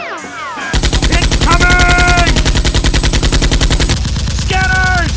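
Rapid automatic machine-gun fire, a dubbed gunfire sound effect: one continuous burst of evenly spaced shots lasting about three seconds, beginning just under a second in.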